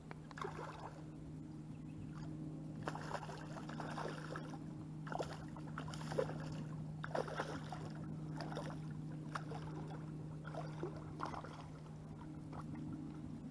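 A hooked white crappie thrashing at the surface of shallow lake water, with a run of irregular splashes, over a steady low hum.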